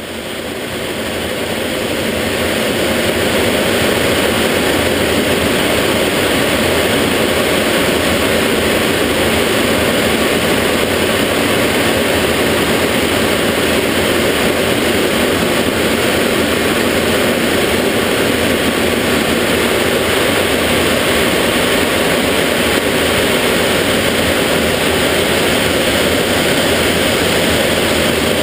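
Steady cockpit noise of a BAC Jet Provost in flight, the rush of its Viper turbojet engine, rising in over the first three seconds and then holding level.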